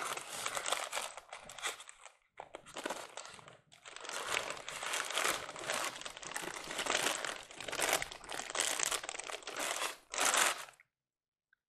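Clear plastic wrapping crinkling and rustling in irregular bursts as it is handled and pulled off a model steam locomotive, stopping suddenly near the end.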